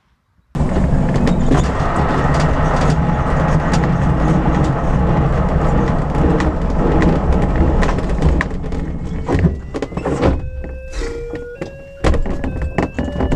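A glider's wheel rolling over a grass airfield on the landing run, heard inside the cockpit as a loud rumble and rattle that eases off after about ten seconds. In the last few seconds a run of short tones steps upward in pitch.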